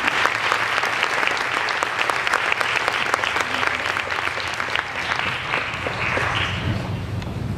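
Audience applauding in a large hall, many hands clapping at once, dying away near the end.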